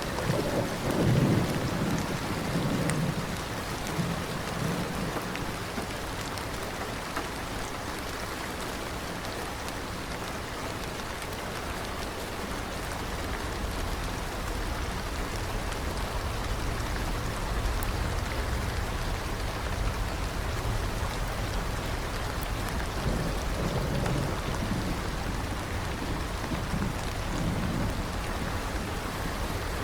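Steady rain falling, with low rolls of thunder rumbling near the start and again toward the end.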